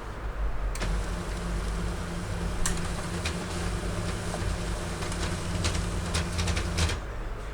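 HP LaserJet P2055DN laser printer running a test print through its rebuilt fuser: the drive motor and gear train hum steadily from about a second in until near the end, with scattered clicks and ticks from the paper path. Pages come out wrinkled, which is blamed on a faulty low-quality replacement fuser film.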